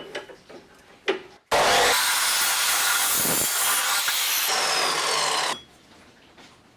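A few handling knocks, then a power tool cutting or grinding material for about four seconds, starting suddenly and stopping.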